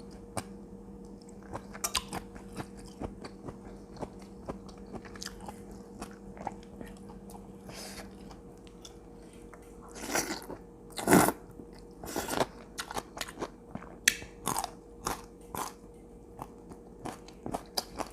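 Close-up eating sounds: a person biting and chewing crunchy food with many short crunches and crackles. The loudest bites come about two-thirds of the way through.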